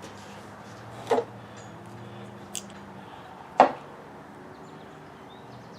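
Sharp knocks of small plastic parts as a table saw's on-off toggle switch is handled and fitted back together: two clicks about two and a half seconds apart, the second louder, with a faint tick between them, over a steady low hum.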